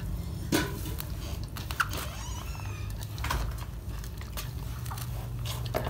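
A hand kneading and squeezing a moist shami kabab mixture in a steel bowl: soft squishing with a few sharp clicks.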